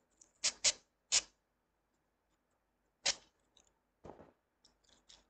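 Masking tape being pulled off the roll in short rasping rips: three quick ones in the first second and a single loud one about three seconds in, then fainter crinkling of the tape strip near the end.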